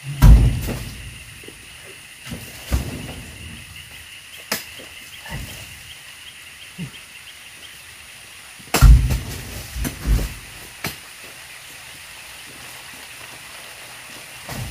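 Oil palm fruit bunches thudding into a wooden truck bed as they are thrown up and loaded by hand, with two heavy thuds, one just after the start and one about nine seconds in, and lighter knocks between. A steady faint high-pitched drone runs underneath.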